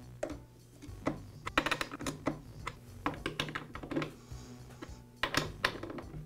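Quick runs of light metallic clicks and rattles from a chainsaw's chain and bar being adjusted by hand, with a T-shaped bar wrench clinking on the bar nuts as they are tightened.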